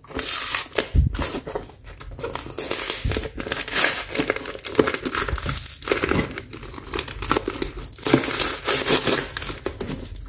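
Plastic parcel packaging being crinkled and torn open by hand, in irregular crackling bursts.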